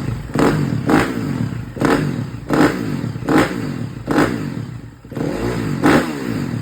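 2011 KTM 350 SX-F single-cylinder four-stroke cranking over on its starter without catching, labouring in a slow, uneven rhythm of surges a bit under a second apart. It stops briefly about five seconds in and then carries on. The owner puts the no-start down to a fuel-delivery problem.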